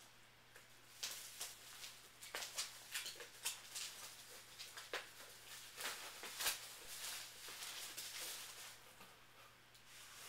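Soft, irregular clicks and rustles of VHS tapes and packing being handled as they are taken out of a box one at a time, over a faint steady electrical hum.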